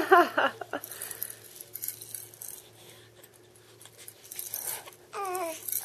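Baby's hand rattle shaken, a scatter of quick small clicks over the first couple of seconds that then dies away. Near the end the infant starts a pitched, rising fussing cry.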